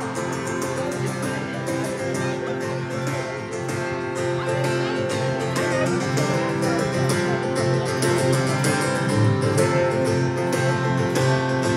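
Instrumental break in a song: strummed acoustic guitar keeping a steady rhythm over held chords, with no singing.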